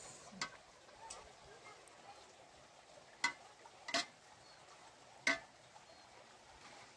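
Metal ladle scraping and clinking against a metal cooking pot as stew is dished out, with three sharp clinks in the second half.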